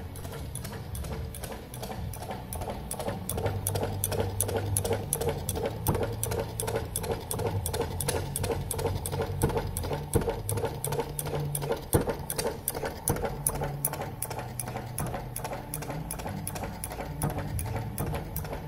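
Replica of Henry Ford's first engine, a single-cylinder four-stroke petrol engine built from photos, running steadily with a fast, even mechanical clatter of rapid ticks over a low hum.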